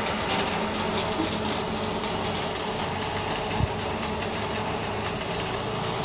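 Machinery on a precast beam yard running steadily with a hum, with a single knock about three and a half seconds in.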